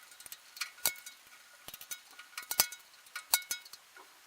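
A series of sharp metallic clinks and taps, each with a brief ring, as a blade-adjustment handwheel is fitted onto the Axminster TS-250M-2 table saw.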